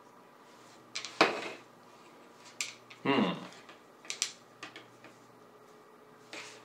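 Scattered plastic clicks and knocks from a camera grip's fold-out tripod legs being handled and snapped into place. There is a short sound that falls in pitch about three seconds in.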